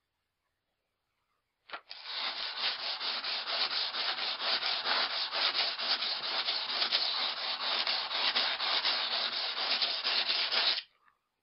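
Axe edge being drawn again and again over coarse 120-grit wet-and-dry sandpaper laid on a foam mat: a steady run of scraping strokes. It starts about two seconds in after a brief tick and stops abruptly shortly before the end. This is the coarse-grit stage, grinding the nicks and gouges out of the convex edge.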